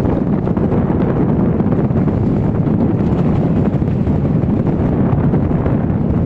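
Strong gusty wind buffeting the phone's microphone, a loud, steady, rumbling roar as a squall blows in over the sea.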